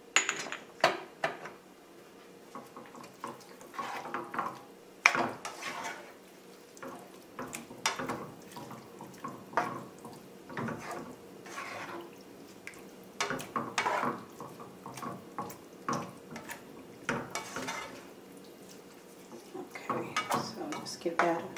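Black plastic spatula stirring a chunky tomato and spinach sauce in a skillet, scraping and knocking against the pan at irregular moments.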